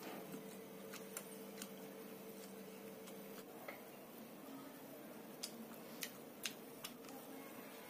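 Wooden chopsticks clicking sharply as they pick up noodles from a metal plate: a few clicks about a second in and a cluster of louder ones in the second half, over a faint steady hum that stops about halfway.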